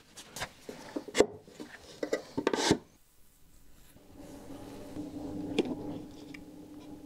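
Wooden parts handled and knocked together, with a few sharp clacks and a scrape. After a short pause, a small motor starts about four seconds in and runs with a steady hum.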